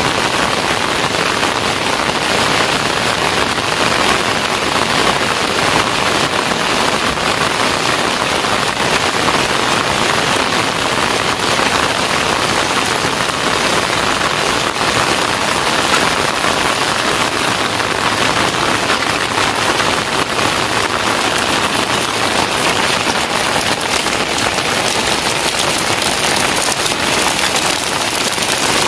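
Heavy rain pouring steadily onto a wet paved street, a dense, even hiss of drops that neither builds nor breaks off.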